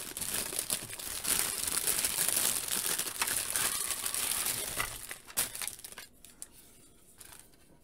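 Clear plastic packaging film crinkling as it is pulled off grey plastic diorama panels. The crinkling dies away about five seconds in, and is followed by a couple of light clicks as a plastic wall panel is handled.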